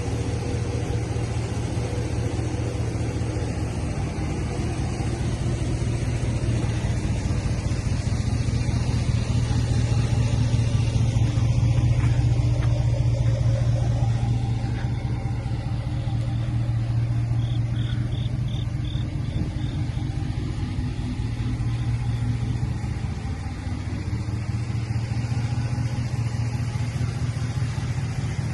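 Ram pickup truck's engine idling with a steady low rumble, swelling slightly for a few seconds near the middle.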